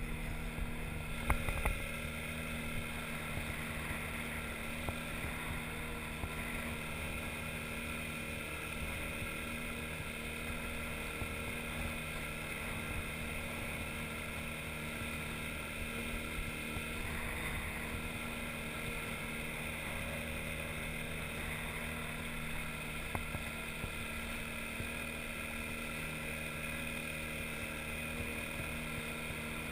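Outboard motor of an inflatable boat running steadily, with water swishing along the hull. There are a couple of sharp knocks about a second in.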